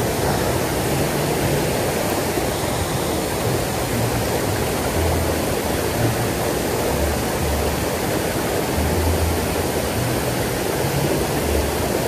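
Steady rush of water pouring over a wide concrete weir and running down a small rocky stream channel.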